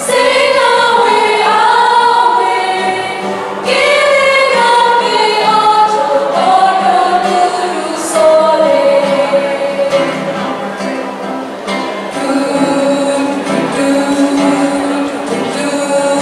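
Female vocal group of seven singing a song in harmony, with held notes that slide between pitches, accompanied by acoustic guitars. New phrases come in a little louder about a quarter of the way in and again about halfway.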